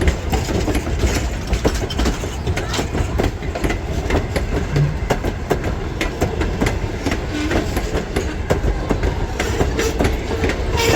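Train rolling past, its wheels clicking sharply and often over the rail joints above a steady low rumble.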